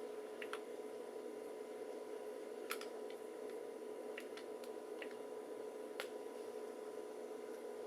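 Scattered key presses on a Compaq SLT/286 laptop keyboard: about nine short, sharp clicks spread irregularly over several seconds, over a steady hum.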